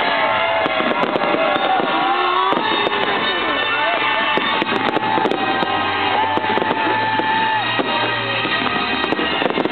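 Fireworks display going off densely: rapid crackling and popping with many whistling glides that rise and fall in pitch, over music playing with a steady low bass.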